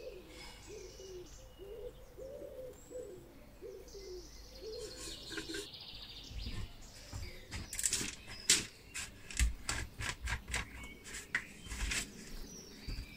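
A run of short squeaky tones, about two a second, for the first five seconds or so; then irregular clicks, knocks and cloth rubbing as the brass burner and stove body are handled and wiped down.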